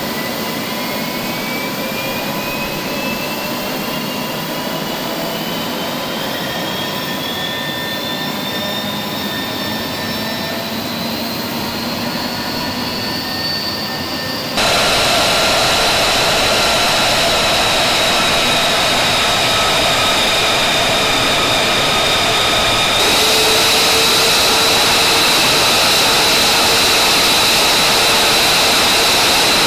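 F-35 Lightning II's Pratt & Whitney F135 turbofan engine running, with a high whine that climbs slowly in pitch over the first half. About halfway it jumps abruptly to a louder, steadier jet roar, and it gets louder again about three-quarters through.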